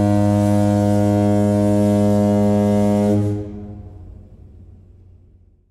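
A ship's horn sounding one long, low blast that stops about three seconds in and dies away in a fading echo.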